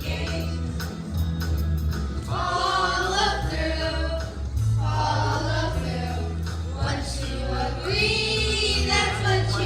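A group of children singing a song from a school musical, over instrumental accompaniment with a steady bass line.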